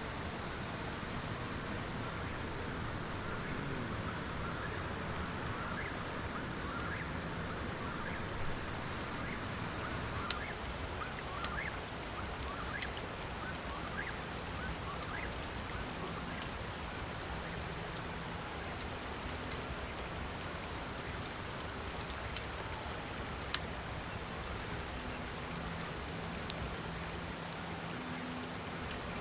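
Riverside ambience: a steady rush of flowing water, with a high insect trill that stops and starts every few seconds. Short bird chirps come in the first half, and sharp clicks are scattered through the middle.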